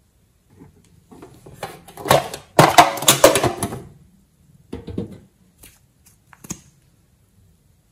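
Slime being worked by hand, giving a dense run of crackly clicking pops from about a second in to about four seconds, then a few single clicks.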